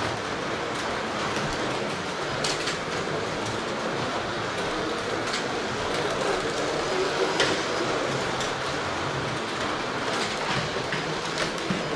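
Carrera Digital 1/32 slot cars running laps on plastic track: a steady whir of small electric motors and tyres, with occasional sharp clicks.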